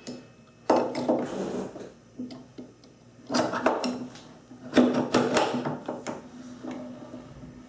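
Metal clunks and rattles from a South Bend drill press's quill feed handle, its splined shaft pushed into the head and worked by hand. They come in three clusters: about a second in, around three and a half seconds, and around five seconds.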